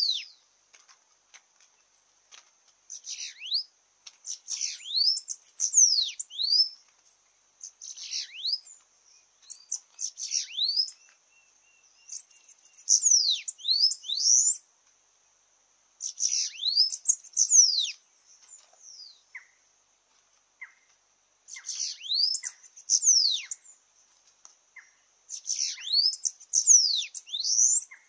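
Bananaquits singing: phrases of high, thin, sibilant notes with quick downward sweeps, each phrase lasting one to two seconds and repeated every few seconds.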